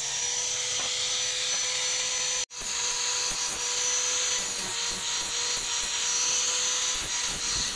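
Electric angle grinder with a flap disc running with a steady whine and hiss as it grinds the steel of an axe head forged from a truck leaf spring. The sound cuts out for an instant about two and a half seconds in, then the same whine carries on.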